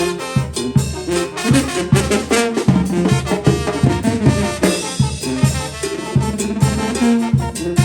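A Mexican banda (brass band) playing a tune with brass and drums to a steady, regular beat.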